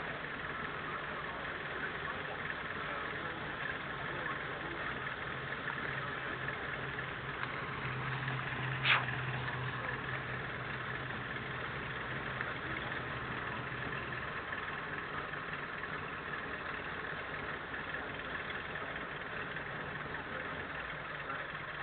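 A car engine idling with a steady low hum that grows louder for several seconds around the middle, and a single sharp click about nine seconds in.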